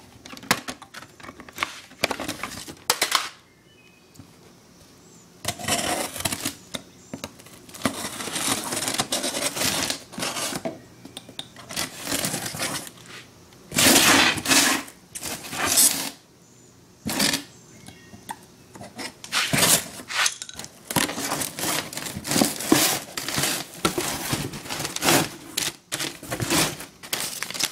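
Hands handling replacement mower parts and their packaging: small hard parts clinking and clattering, with rustling and crinkling, in irregular bursts broken by a few short pauses.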